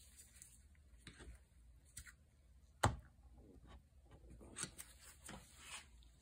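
Light clicks and scrapes of small tools and metal parts being handled at a chainsaw piston, with one sharp click about three seconds in. The work is on a piston pin that is stuck and will not push out easily.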